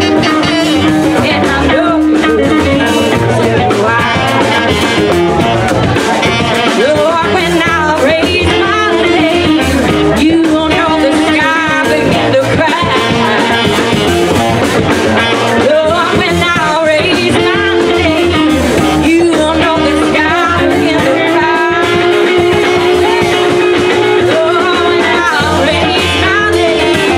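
Live band playing: a woman singing into a microphone over electric guitar, drums, upright bass and saxophone, with long held notes in the vocal or horn line.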